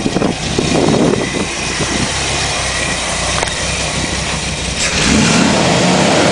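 Chevrolet 283 V8 running smoothly, heard close up under the open hood of a 1962 Chevy C10 pickup.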